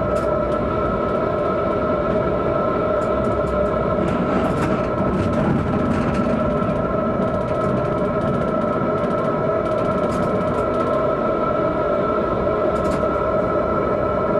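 Tram running along its track, heard from inside the driver's cab: a steady whine over the rumble of wheels on rail, with scattered sharp clicks, most of them bunched about a third of the way through.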